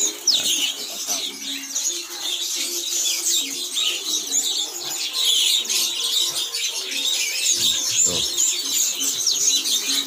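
Many caged songbirds chirping and whistling at once: a dense, overlapping chorus of short high calls that never lets up.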